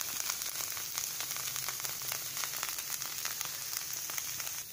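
Rava dosa frying in oil on a hot pan: a steady sizzle full of fine crackles as the batter roasts and browns.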